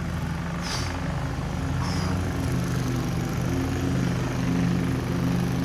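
Lawn mower engine running at a steady speed, a continuous low drone.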